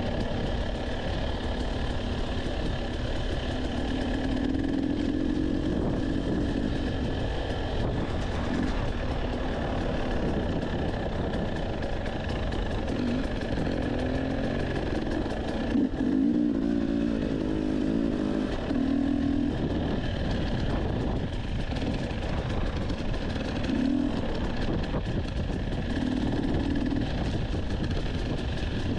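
Dirt bike engine running under light, changing throttle on a narrow trail, its note swelling and easing every second or two. There is a short knock about halfway through.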